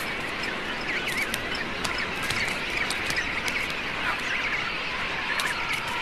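Seabird colony ambience: many birds calling at once, overlapping and fairly distant, over a steady rush of background noise.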